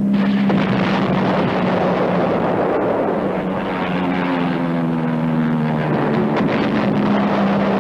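F-51 Mustang piston-engined fighter planes droning, a steady engine tone over rushing noise that shifts in pitch about four seconds in.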